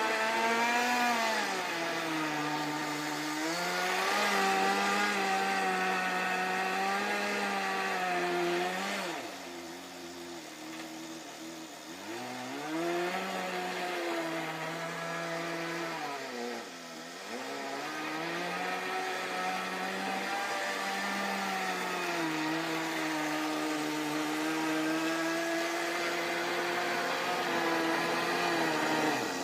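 Small nitro glow engine of a Kyosho Nitro Blizzard RC tracked vehicle, a high buzzing note that rises and falls with the throttle as it drives. It drops back toward idle about ten seconds in and again briefly around seventeen seconds, then revs up and holds a steady note.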